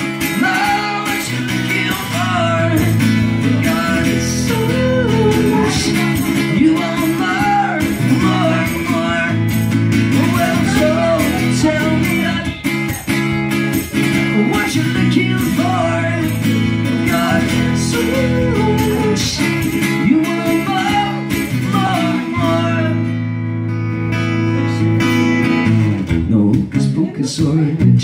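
Acoustic guitar strummed in steady chords, with a man singing along over it. Near the end the strumming turns choppier.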